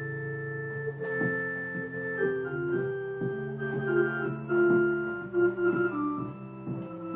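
Pipe organ playing: held chords at first, then a line of quicker notes moving over sustained lower notes, growing louder about four seconds in.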